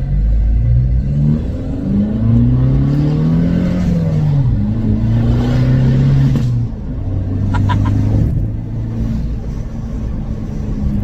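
Abarth's turbocharged 1.4 four-cylinder engine heard from inside the cabin, pulling away and accelerating. Its note climbs and falls as the revs change, holds steady, then eases off about six and a half seconds in. The intake is fitted with an open induction filter and a switchable dump valve and sounds very loud in the cabin.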